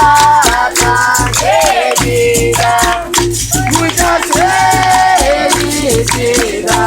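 Capoeira music: berimbau with its caxixi rattle keeping a steady rhythm under sung call-and-response, with percussive strokes throughout.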